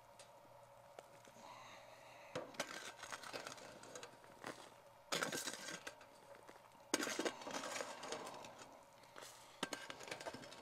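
Metal spade scraping ash and spent charcoal off a metal trash can lid, in about four rough scrapes with scattered clinks.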